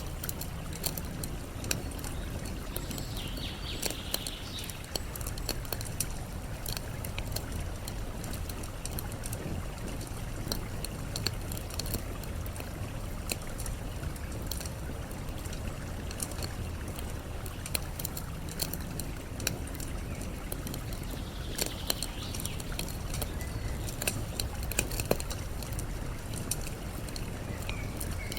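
Wood campfire crackling with frequent small sharp pops over a steady background of running water. A few short bird calls come in briefly, once a few seconds in and again near the end.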